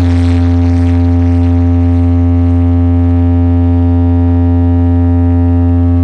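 A stacked wall of DJ speaker boxes blasting one steady, very loud low bass tone, held without change, with a buzzing stack of overtones above it.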